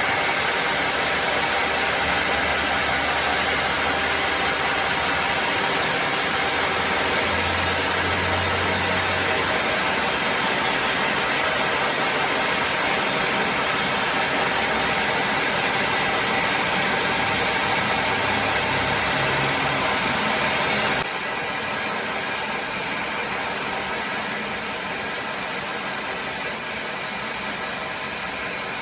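Workshop machinery running steadily with a dense mechanical noise. About two-thirds of the way through, the sound drops abruptly to a slightly quieter, different steady noise.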